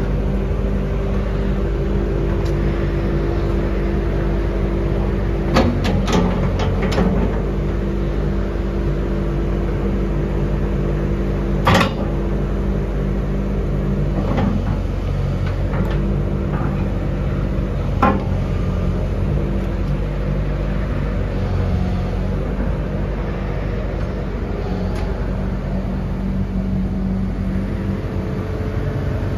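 Kobelco ED150 Blade Runner excavator's diesel engine running steadily while the boom and arm are worked hydraulically, the hum shifting in pitch a few times under load. Several sharp metal clanks come from the working arm and bucket, the loudest about twelve seconds in.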